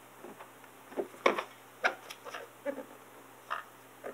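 A few light taps, clicks and rustles as a wrapped plastic RC truck body is handled, turned and pressed on, the sharpest about a second in and again near the two-second mark.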